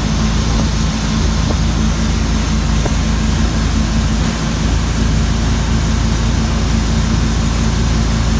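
Motorboat engine running steadily under way, a constant low hum under a steady rushing noise.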